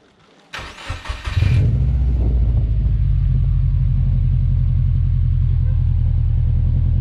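2012 Subaru WRX's turbocharged flat-four cranks briefly, catches about a second and a half in, and settles into a steady low idle through its newly fitted Invidia R400 exhaust.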